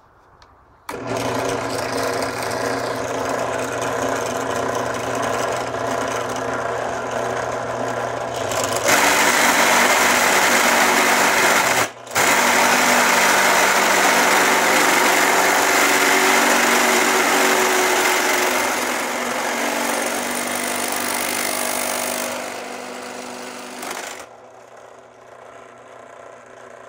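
Bench drill press starts about a second in and runs with a steady motor hum. From about 9 s in, its large bit cuts loudly into a steel tube, with a brief break near 12 s. The cutting stops about 24 s in and the press runs on more quietly.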